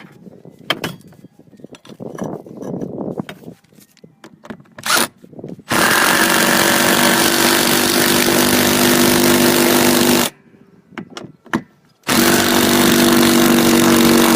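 Cordless impact driver driving a 3-inch lag bolt through a flat tile hook into a roof rafter, after a few seconds of light clicks and handling. It runs in two long bursts, with a short pause between them.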